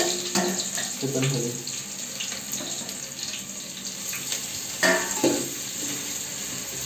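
Chopped onions frying with a steady sizzle in hot oil in an aluminium pot on a gas burner. Two sharp knocks about five seconds in.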